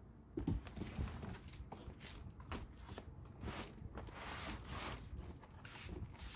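Cardboard box and packaging being handled as an air conditioner is pulled out of its box: an irregular run of rustles, scrapes and light knocks.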